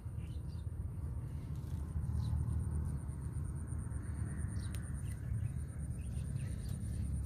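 Outdoor field ambience: an insect trilling steadily in a fast, high pulse, over a continuous low rumble, with a few faint bird chirps.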